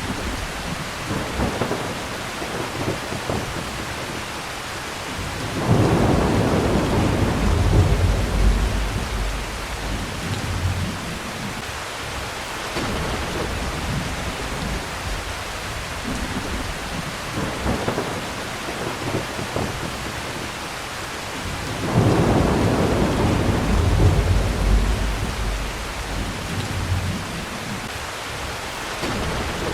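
Steady heavy rain with two rolls of thunder: the first begins about six seconds in, the second about two-thirds of the way through, and each rumbles low for several seconds before fading back into the rain.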